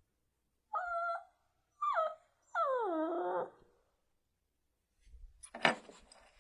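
Dog whining: three high whimpers, the last one longer and falling in pitch. About five seconds in comes a short scratchy rustle with clicks.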